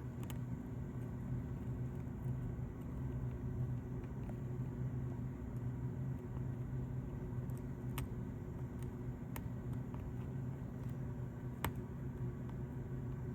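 Steady low hum from running equipment, with a few faint light clicks.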